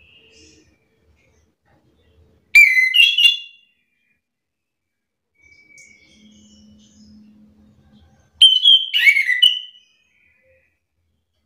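Chestnut-capped thrush (anis kembang) singing two loud, short phrases of high whistled notes, about 2.5 seconds and 8.5 seconds in, with faint soft notes between them.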